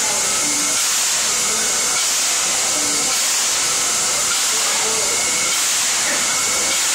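Steady hiss of steam escaping from a standing New South Wales 30 class steam tank locomotive, number 3016, unbroken and at an even level.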